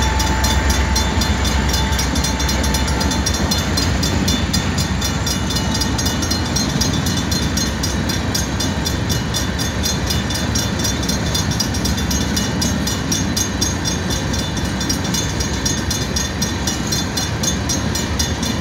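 Slow-moving freight train rolling across a road grade crossing: a steady, continuous rumble of wheels and cars, with a fast, regular ticking high up.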